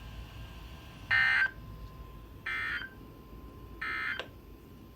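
Emergency Alert System end-of-message data tones: three short bursts of digital data tones about a second and a half apart, each fainter than the one before. They mark the end of the warning broadcast.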